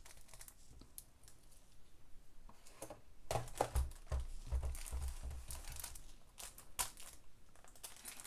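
Diamond painting canvas under its clear plastic protective film crinkling and rustling in irregular crackles as it is unfolded and smoothed flat by hand, with a few dull low thumps in the middle.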